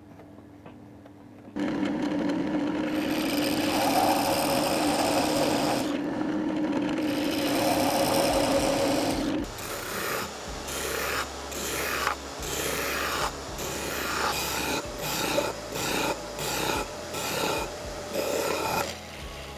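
A power tool runs steadily with a hum for several seconds, working wood. It stops, and rhythmic rasping strokes on wood follow, about one and a half a second.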